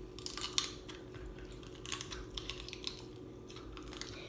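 Crab leg shells cracking and snapping in the hands: scattered sharp clicks and crackles, in two clusters near the start and around two seconds in. The shell is hard to crack.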